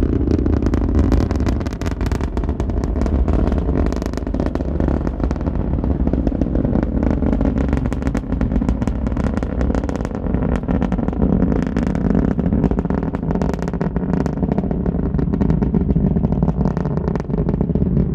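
Rocket launch exhaust: a loud, steady low rumble with dense crackling.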